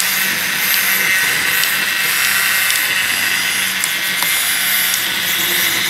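Small desktop 3D printer running a print: a steady mechanical whir with a high whine from its stepper motors as the print head and bed move, over the hiss of its cooling fan.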